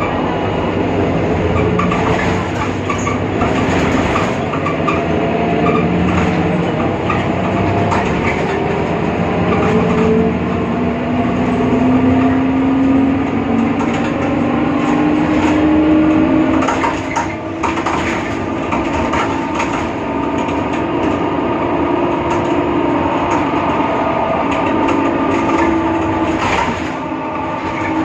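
BredaMenariniBus Avancity Plus city bus driving, its drivetrain giving a whine that climbs in pitch as the bus gathers speed, over rattling clicks. The whine is the strange sound that the uploader puts down to a faulty differential.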